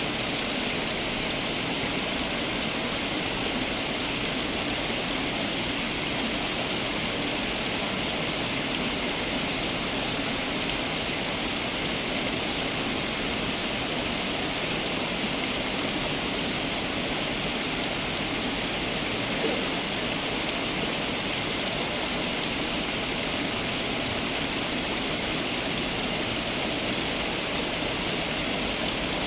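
Water from a garden fountain splashing and rushing steadily, without a break.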